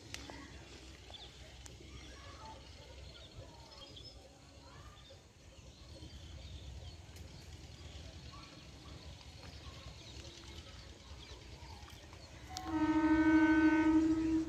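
The approaching ICF Medha EMU local train sounds its air horn once near the end, a single steady tone lasting under two seconds. Before it there is only a faint low rumble.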